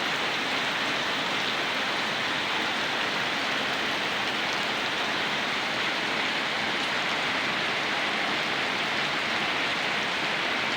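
Heavy rain falling steadily, an even, unbroken hiss that doesn't let up.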